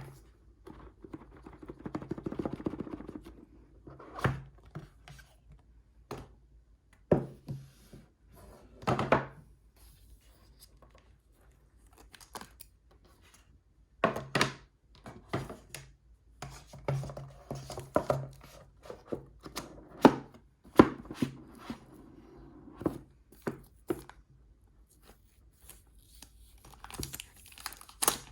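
Unboxing of an Apple Magic Keyboard: the box and its cardboard and paper packaging are handled and opened, with scattered hard thunks and knocks between spells of scraping, rubbing and tearing.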